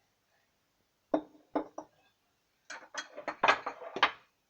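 Kitchen dishes and utensils being handled: three sharp knocks a little over a second in, then a quicker cluster of clattering knocks in the second half.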